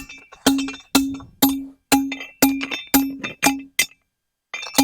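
Heavy homemade steel T-post driver slammed down onto a steel T-post, about two metallic clangs a second, each ringing briefly. After about nine strikes there is a short pause, then the driving starts again near the end.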